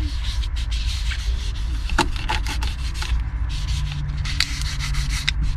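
Cleaner-activator towelette rubbed against rear window glass: a run of irregular scuffing strokes over a steady low rumble.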